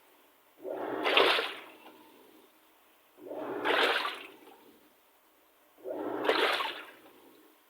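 Panasonic top-load washing machine agitating in its wash cycle: the pulsator swings the water and laundry in about three sloshing surges, roughly two and a half seconds apart, with the motor humming low during each stroke.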